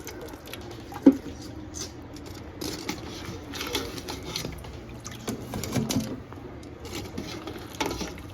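Boiled lobsters being lifted from the pot and set into a cold-water bath in the sink: light splashing and dripping with scattered knocks of shell on pot and sink, one sharp knock about a second in.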